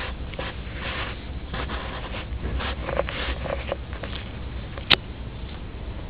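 Handling noise: a run of short rustles and scrapes, then one sharp click about five seconds in, over a steady low hum.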